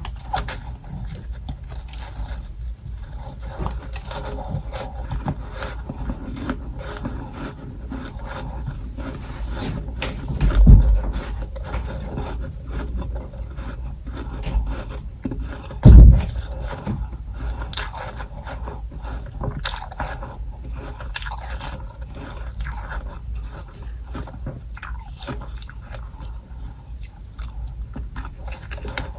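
Humidifier frost from a freezer tray being crunched and scraped close to the microphone: a continuous dense crackle of small clicks. Two loud low thumps come about 11 and 16 seconds in.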